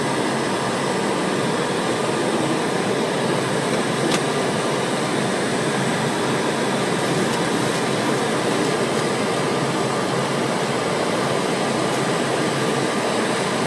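Steady rushing cabin noise on the flight deck of a Boeing 727-200, with a single faint click about four seconds in.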